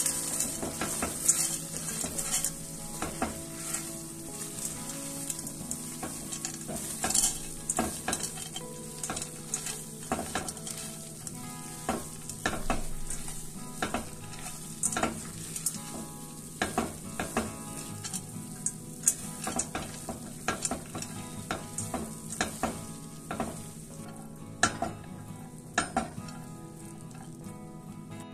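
A silicone spatula stirring fusilli through a creamy tomato sauce in a stainless steel pan: irregular scrapes and clicks against the pan over the steady sizzle of the cooking sauce.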